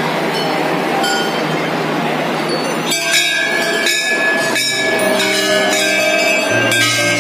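Crowd murmur for the first few seconds. Then, from about three seconds in, hanging brass temple bells are struck again and again, several ringing together and overlapping.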